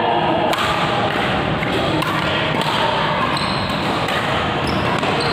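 Echoing sports-hall noise during badminton play: people's voices and the thuds of rackets and feet on the court.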